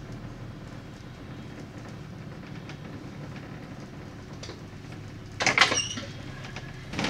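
Bus cabin heard from the upper deck: a steady low engine hum, then a sudden loud rattling squeal lasting about half a second, five and a half seconds in.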